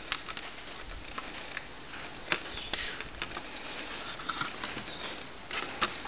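Scattered light clicks and taps of an aluminium RAM badge being handled and pushed into the badge slot of a TRS-80 Color Computer case, with two sharper clicks a little before halfway.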